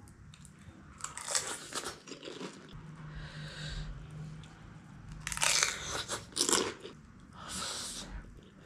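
Close-up eating sounds: crisp pani puri shells crunching as they are bitten and chewed, in three spells, about a second in, from about five seconds in, and near the end.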